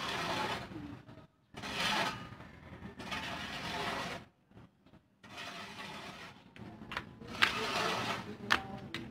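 Volcanic ash being scraped across a concrete rooftop in repeated strokes, each a second or two long with short pauses between, and two sharp knocks near the end.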